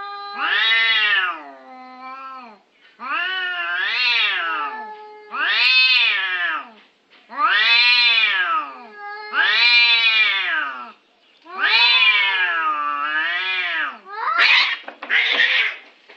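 A cat meowing over and over: about seven long calls, each rising then falling in pitch, followed by two shorter, harsher cries near the end.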